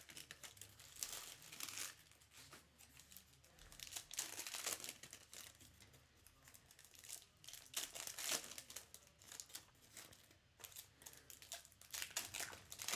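Trading card pack wrappers crinkling and tearing as packs are ripped open and the cards handled, in irregular rustling spurts with short quieter gaps.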